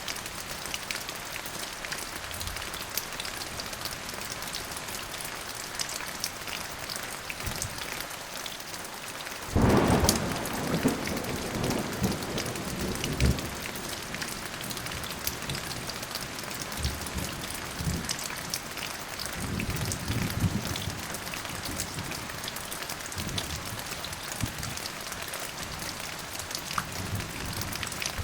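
Steady rain falling, with a thunderclap breaking in sharply about a third of the way through and rumbling on, fading in a few further low rolls.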